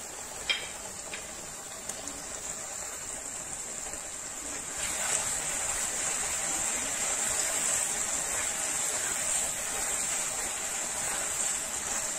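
Egg halwa sizzling in ghee in a frying pan, stirred with a silicone spatula; the halwa has started to release its ghee, the sign it is nearly done. One small click comes about half a second in, and the sizzle gets louder about five seconds in as the stirring picks up.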